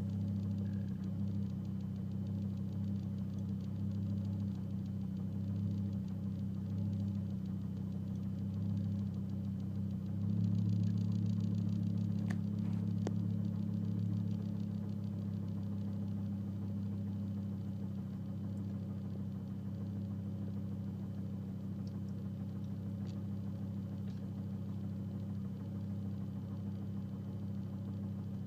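2005 Volvo S40 T5's turbocharged five-cylinder engine running steadily at about idle, a little louder for a few seconds about ten seconds in. The car has a random misfire, fault code P0300, that the owner says shows as the revs increase.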